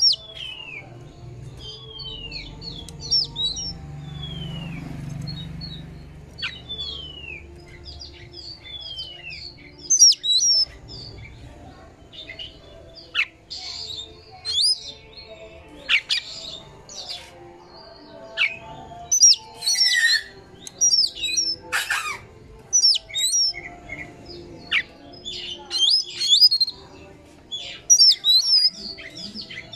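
Oriental magpie-robin singing: a run of clear whistles, each falling in pitch and repeated every second or so, then faster, sharper chirps and trills. There are a few harsh, scratchy notes about two-thirds of the way through.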